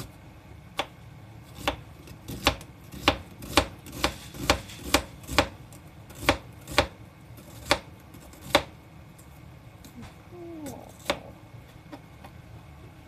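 Kitchen knife slicing an onion on a plastic cutting board: a run of sharp knocks as the blade meets the board, coming about two a second at their quickest and stopping about nine seconds in, with one last knock a couple of seconds later.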